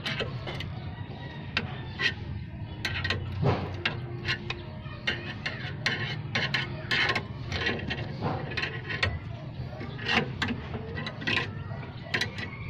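Scissor jack being cranked by hand, its crank rod and screw giving an uneven run of metallic clicks and clinks, a few each second.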